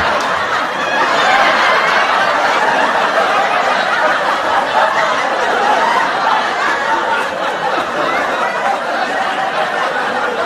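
Sitcom laugh track: a studio audience laughing together, a steady wash of many overlapping laughs and chuckles that eases off slightly near the end.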